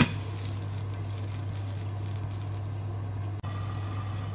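A glass pot lid clinks down onto a metal cooking pot right at the start, then the covered pot of onions, tomatoes and water simmers over a steady low hum.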